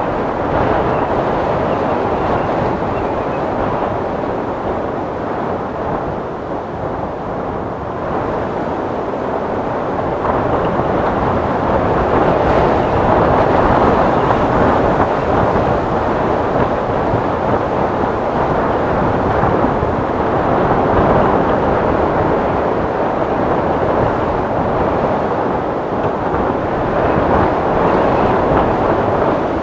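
Wind sound effect: a steady rushing of wind that swells and eases slowly, a little stronger from about twelve seconds in.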